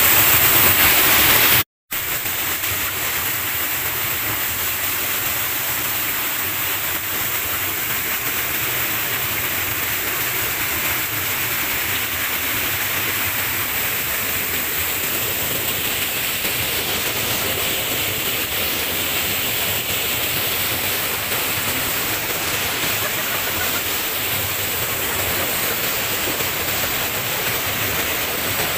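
Small waterfall crashing into a rock pool at close range: a steady, even rush of water. The sound cuts out for a moment just under two seconds in and comes back slightly quieter.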